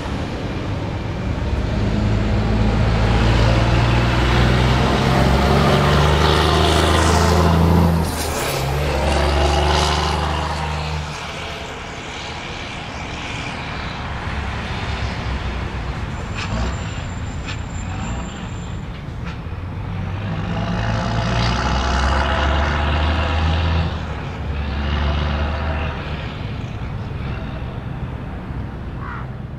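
MAN truck's diesel engine roaring as the tractor unit accelerates hard past, pulling through the gears with the engine note dropping at each shift. It builds to a loud pass twice, a few seconds in and again about two-thirds through.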